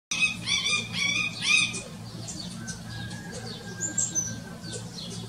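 House sparrows chirping: a quick run of loud, short, high chirps in the first two seconds, then fainter scattered chirps, over a steady low hum.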